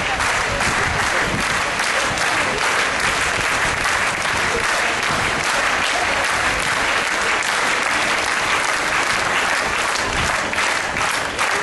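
A crowd of marchers clapping steadily and without a break.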